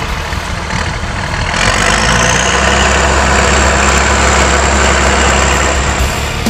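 Farm tractor engine running steadily as the tractor drives across a field, growing louder about a second and a half in, with a thin high whine that rises slightly and then holds.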